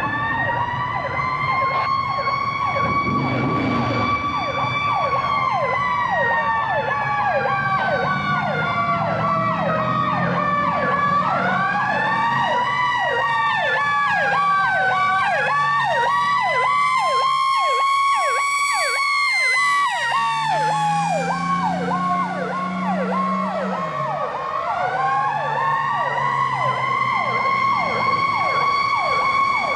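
Fire apparatus sirens sounding together as the trucks respond: slow wails rising and falling and crossing one another, over a second siren cycling rapidly. A deeper low tone joins for a few seconds past the middle.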